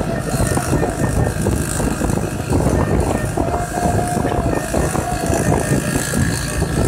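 Vintage Vespa scooter riding at road speed: the two-stroke engine running steadily under heavy wind rumble on the microphone.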